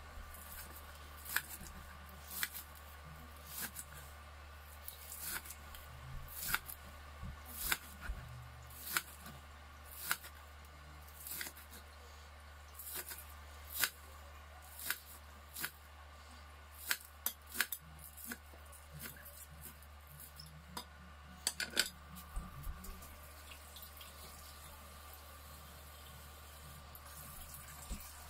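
Kitchen knife chopping green onions on a cutting board: sharp knocks of the blade on the board about once a second, stopping several seconds before the end.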